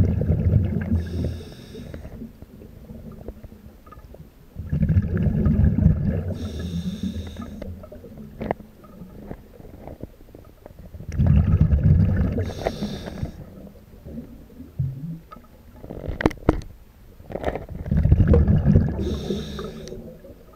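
A scuba diver breathing through a regulator underwater: four breath cycles about six seconds apart, each a low bubbling rumble of exhaled air followed by a shorter hiss of air through the regulator.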